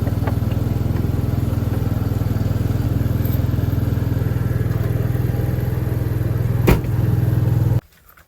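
An engine running steadily at idle with a fast, even low pulse, a single sharp click near the end, then the sound cuts off suddenly.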